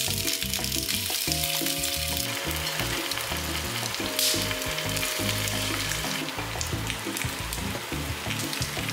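Food sizzling steadily in a hot frying pan, with a brief louder flare of sizzle about four seconds in, over soft background music.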